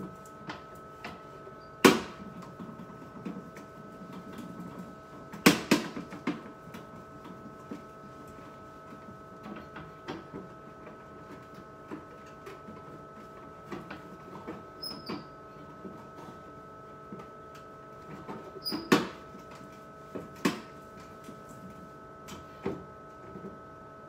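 Scattered knocks and clatter of items and plastic door shelves being handled in an open refrigerator, with a few sharper knocks standing out, over a steady high hum.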